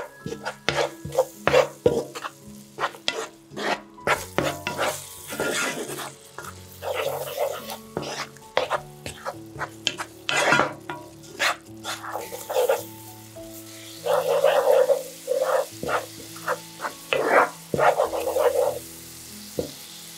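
A plastic spatula stirring and scraping chili-garlic oil sauce around a nonstick pan, in many short strokes over a steady sizzle as the sauce cooks.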